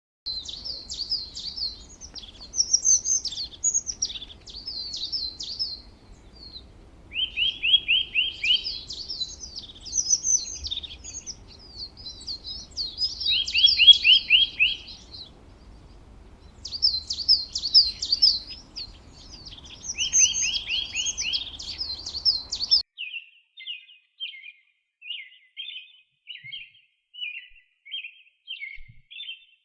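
Songbirds singing: high, fast trilled phrases, with a lower rapid trill returning every few seconds. About 23 s in, the recording changes to a steady series of short chirps.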